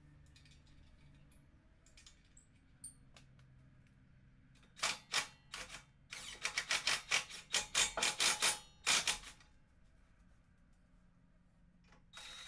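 Hand ratchet wrench clicking in quick runs, mostly between about five and nine seconds, as 14 mm nuts are run down snug but not yet tight.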